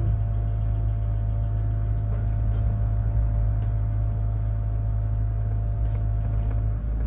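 Mercedes-Benz eCitaro electric city bus running: a steady low hum with a faint steady whine on top that stops near the end, and a few light clicks.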